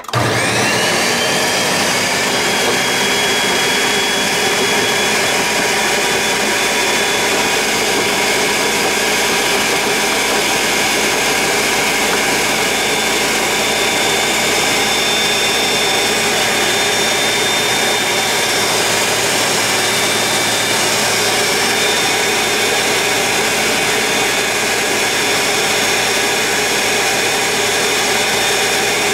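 Ninja Mega Kitchen System 1500-watt blender running on its Blend setting with a full 72 oz pitcher. The motor spins up with a rising whine over the first second or two, then runs loud and steady.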